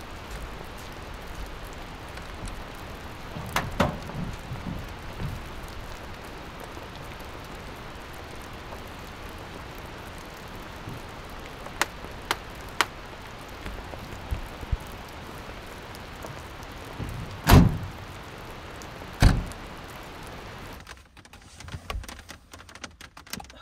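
Steady rain falling, broken by a few knocks and then two loud thuds, the truck's tailgate and camper-shell hatch being handled and shut as someone climbs into the back of the truck. Near the end the rain sound drops away to a much quieter background.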